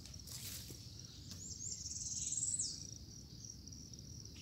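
Insects trilling steadily at a high pitch. A louder, buzzing trill rises about halfway through and cuts off sharply just before three seconds in. There is a brief scratchy noise just after the start.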